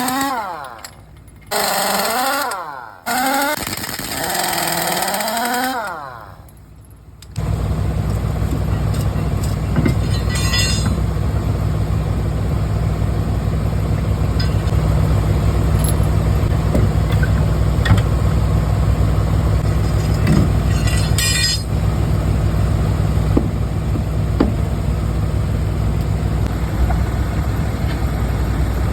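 Engine pitch rising and falling several times, then about seven seconds in a heavy engine comes on and runs with a steady low drone, broken twice by short hissing bursts.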